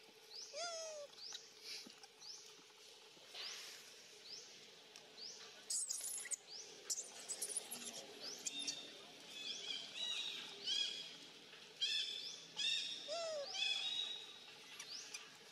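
Birds calling in the surrounding trees: short, rising high chirps repeated over and over, becoming a fast run of notes from about halfway through.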